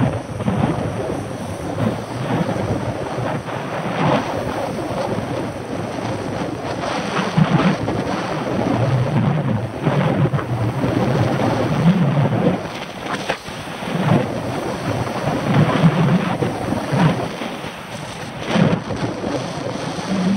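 Wind buffeting the microphone of a handlebar-mounted camera on a moving bicycle: an uneven rumble that surges and eases.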